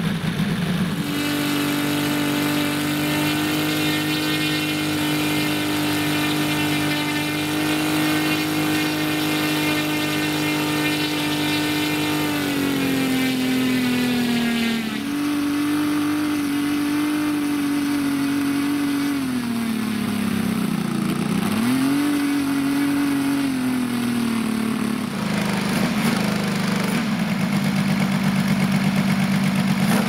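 Saito FG-60R3 three-cylinder four-stroke petrol radial engine running on the ground with its propeller turning. About a second in it is opened from idle to a steady higher speed and held for roughly ten seconds. It is throttled down and back up twice, then settles back to idle near the end.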